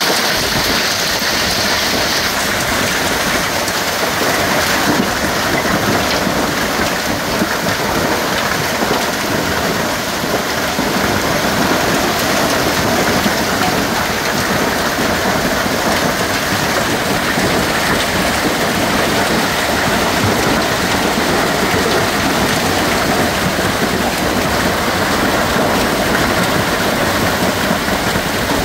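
Heavy hail mixed with rain pelting down on foliage and the ground, a loud, steady, dense clatter that does not let up.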